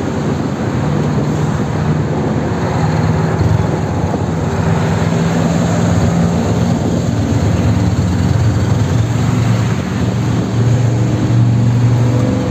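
Motorcycle engine running at road speed under a steady rush of wind noise, its pitch shifting slightly as the revs change.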